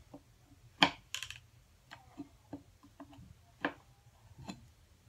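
Steel mortise chisel clicking and knocking against the wood as it is set and worked by hand in a mortise: a few scattered sharp clicks, the loudest about a second in, followed by a brief scrape.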